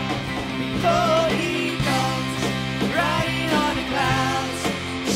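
Instrumental band music with guitar: a lead melody slides between notes over sustained chords.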